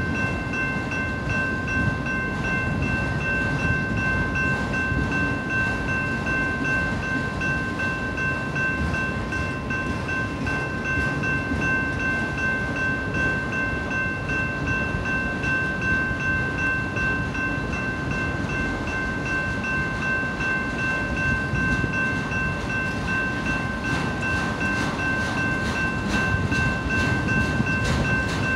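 Freight train of autorack cars rolling steadily through a grade crossing: continuous rumble and clatter of wheels on rail. Steady high ringing tones from the crossing signals' warning bell run over it.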